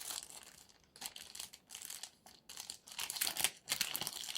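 Packaging crinkling and rustling in uneven bursts as it is handled and an item is put back into it.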